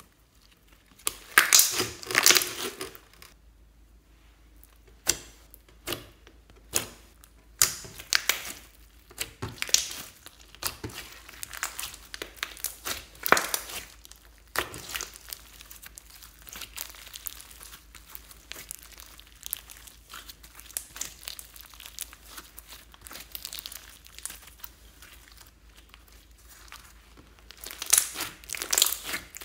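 Hands squishing, stretching and folding a fluffy slime mixed with small foam beads, giving irregular crackling, crinkly squelches. The crackle comes in louder clusters, strongest about two seconds in and again near the end, with softer crackle between.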